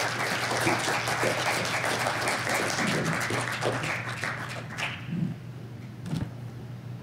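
Audience applauding, a dense patter of many hands clapping that dies away about five seconds in. A single knock comes shortly after.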